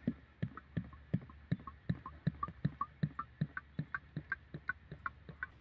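Motor oil glugging out of a plastic jug into a funnel, the bottle gulping air about three times a second; the glugs sit a little higher in pitch near the end.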